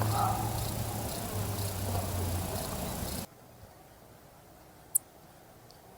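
Steady outdoor background with a low hum and hiss that cuts off abruptly a little past three seconds in. It then goes almost silent, except for one short, very high chirp about five seconds in.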